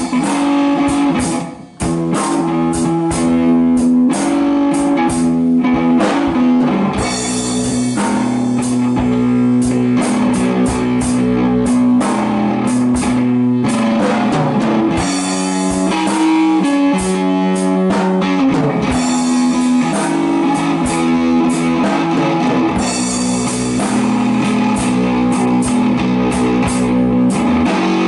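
Electric guitar played through a small combo amp in a heavy blues jam, with drums keeping time. The playing breaks off briefly just under two seconds in, then carries on with a repeating riff.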